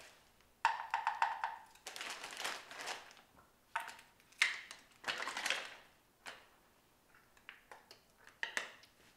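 A small container being handled and opened by hand: a quick run of rattling clicks, then several short bursts of crinkling and rustling, and a few faint clicks near the end.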